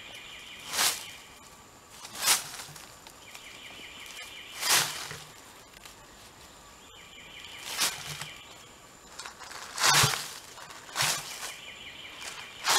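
Short rustles in dry leaf litter, seven of them at uneven gaps, the loudest about ten seconds in. Behind them a high trill of quick ticks, from a bird or insect, repeats four times.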